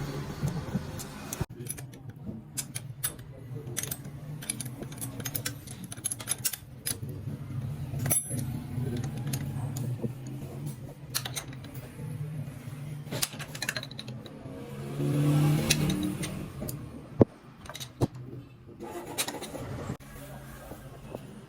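Light metallic clinks and taps at irregular intervals from hand tools on engine parts, over a steady low hum.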